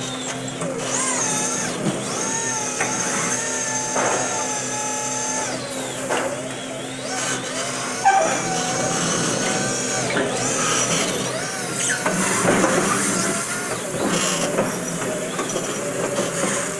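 Crown stand-up electric reach truck working its mast: a steady hum from the hydraulic lift, with a high whine over part of it, that stops with a knock about eight seconds in, followed by mixed rattling and humming from the truck.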